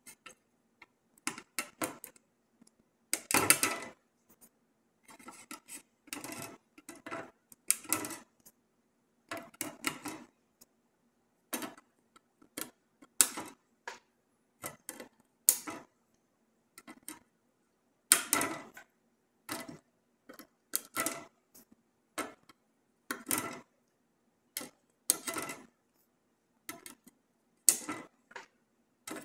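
Flush cutters snipping the excess leads of soldered through-hole capacitors on a circuit board: sharp clicks, about one a second at an irregular pace. A faint steady hum lies beneath.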